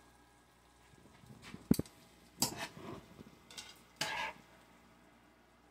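Metal spoon scooping cooked shaved steak out of a nonstick pan: one sharp clink a little under two seconds in, then several short scrapes against the pan.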